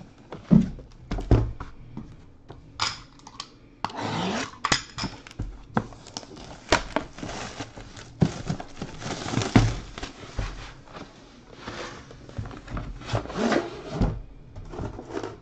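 Plastic shrink-wrap crinkling and tearing as a sealed card box is unwrapped, with repeated knocks and thumps as the box and the aluminium case inside it are handled.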